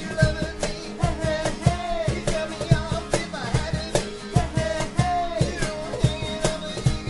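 A small band playing a song live: acoustic guitars strummed over an electric bass, with a steady low thumping beat and sung vocals.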